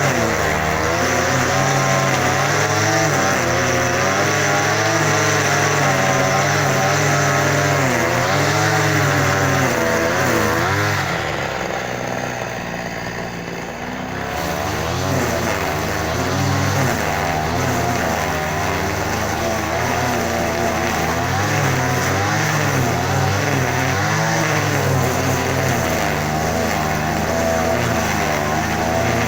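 An engine running and being revved, its pitch rising and falling unevenly. About eleven seconds in it drops lower and quieter for a few seconds, then picks up again.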